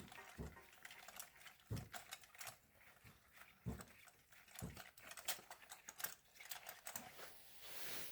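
Faint, irregular clicks and knocks of hand tools on metal engine parts, a few sharp taps a second apart.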